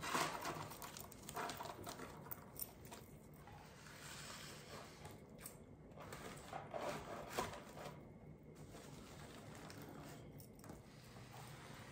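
Faint rustling and crinkling of artificial flower stems and glittery gold picks being handled and pushed into a floral arrangement, with a louder brush right at the start and another about seven seconds in, over a low steady hum.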